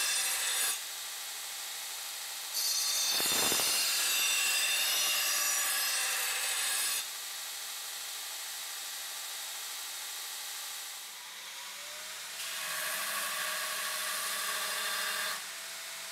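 Belt grinder grinding the bevels of a hardened steel chopper blade: three loud grinding passes, one ending under a second in, one from about 3 to 7 seconds, and one from about 12 to 15 seconds. Between passes the belt keeps running with a quieter, steady hiss.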